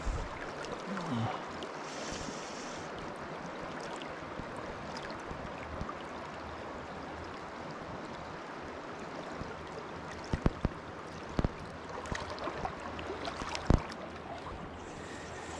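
Steady rush of river current flowing past the wader. A few sharp clicks or knocks stand out in the second half.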